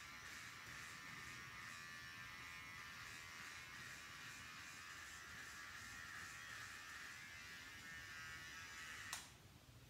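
Cordless electric hair clipper buzzing steadily as it trims the back of the head, then switched off with a click about nine seconds in.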